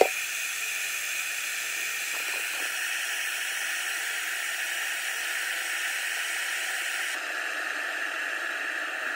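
1500-watt Hamilton Beach 1.7-litre electric kettle heating about a litre of water, a steady hissing rush as the water comes up to the boil. A short click at the very start.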